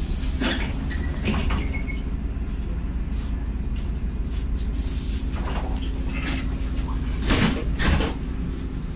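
Cabin of a LiAZ 5292.67 city bus underway: steady low engine and road rumble with a steady hum. Interior panels rattle and knock now and then, loudest in two clunks about seven and a half seconds in.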